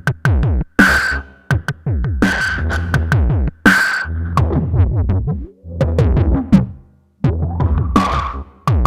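Electronic drum-machine pattern from a Eurorack modular patch with the Endorphin.es Queen of Pentacles module: deep hits whose pitch drops quickly, sharp noisy hits, and a held high synth tone that moves lower about eight seconds in. The rhythm is broken, with brief drop-outs in the middle.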